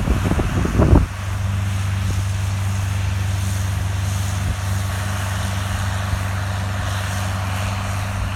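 Gusty wind buffeting the microphone for about a second, then a steady, even drone from the John Deere 4440 tractor's six-cylinder diesel engine, running at a constant speed while pulling a round baler.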